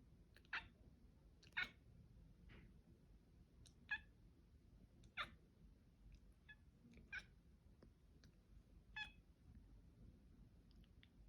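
A domestic cat making a series of short chirping calls, roughly one a second, the chattering a cat makes while watching birds.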